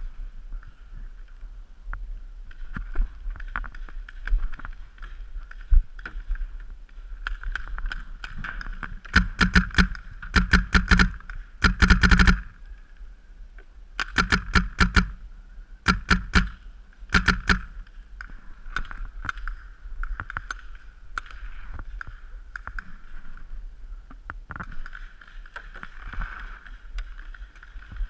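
Paintball marker firing in several quick strings of shots, a few shots a second, between about nine and eighteen seconds in, the densest burst about twelve seconds in, over a steady hiss.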